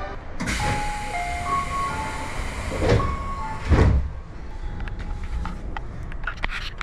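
Tobu Tojo Line commuter train running, a loud rushing rumble with a few brief high squeals, dying away about four seconds in to quieter station ambience with scattered clicks.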